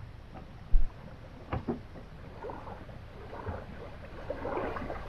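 Small waves lapping and sloshing at the lake shore, an irregular watery splashing that picks up in the second half. A short low thump a little under a second in, like wind buffeting the microphone.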